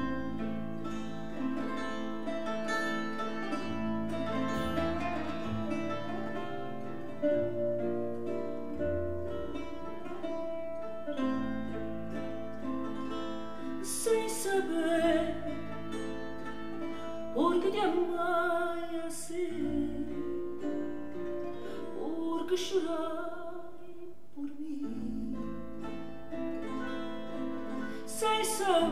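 Recorded music played back through Xavian Delizia loudspeakers: plucked strings with a singing voice that comes in about halfway through and returns several times toward the end.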